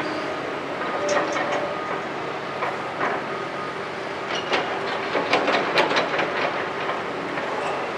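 Hitachi 210 excavator's diesel engine running steadily while its bucket tips broken concrete rubble into a steel tipper truck body. A clatter of chunks hits the bed about a second in, and a longer, louder rattle of falling rubble follows from about four to six seconds in.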